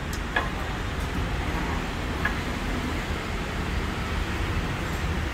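A steady low rumble, with a couple of faint metal clicks as a wrench works on a car's front brake caliper and hub.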